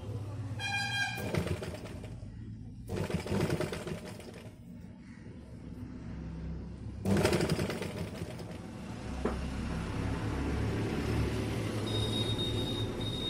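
Domestic sewing machine stitching a saree-border frill onto a blouse neckline, the needle running in a fast even rhythm in stretches, easing off briefly twice as the cloth is turned and guided.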